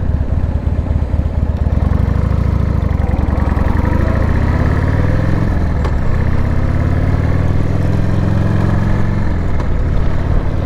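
Harley-Davidson Sportster's V-twin engine accelerating under way. Its pitch climbs, drops about halfway through as it shifts up, climbs again, and drops once more near the end at a second upshift before holding steady.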